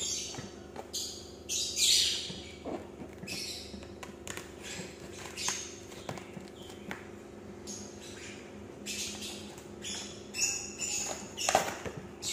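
Plastic wrap and packing tape being picked at and torn off a cardboard box: irregular crinkling, ripping and scratching, with louder tears about 2 seconds in and near the end.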